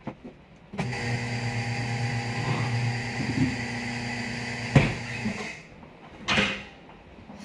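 A motor-driven machine runs with a steady hum for about five seconds, with one sharp crack shortly before it winds down.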